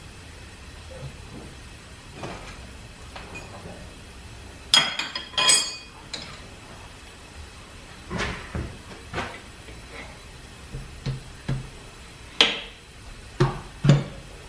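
Scattered metallic clinks and knocks from tools and parts being handled on a small vertical steam engine, with a ringing cluster of clinks about five seconds in and several sharper knocks near the end.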